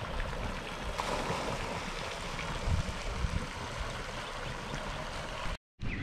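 Steady rushing outdoor noise with an uneven low rumble, broken by a brief dropout to silence near the end.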